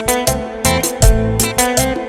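Background music: plucked guitar over a bass line and a steady drum beat.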